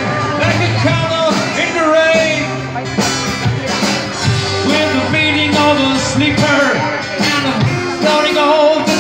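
Live band playing a rock-folk tune: a violin carrying a gliding melody over strummed acoustic guitar and a drum kit.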